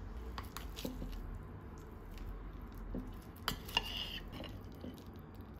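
Knife and fork cutting through a crisp potato-chip crust and minced-meat patty, with soft crunching and scattered clicks of metal cutlery on a ceramic plate. Two sharper clicks come about three and a half seconds in, followed by a short scrape of the knife on the plate.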